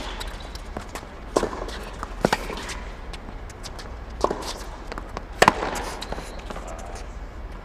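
Tennis ball being hit back and forth in a practice rally: a handful of sharp racket strikes and ball bounces, some in quick pairs, each ringing briefly in an empty stadium.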